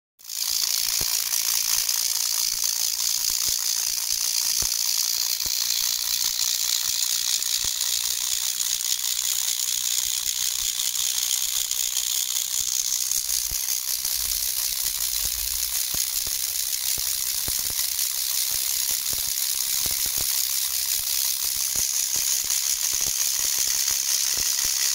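Homemade electrostatic corona motor running on a high-voltage module, its rotor spinning steadily: a continuous fast crackling hiss from the electrodes and rotor.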